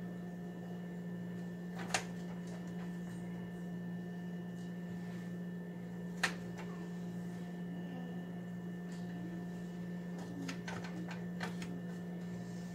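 Steady low hum of a running appliance, with a few sharp clicks of a fork against the bagels and wooden cutting board as apple slices are laid on. There are two single clicks about two and six seconds in, and a quick run of small clicks near the end.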